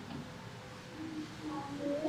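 Faint, indistinct voices with room murmur; a little louder in the second half.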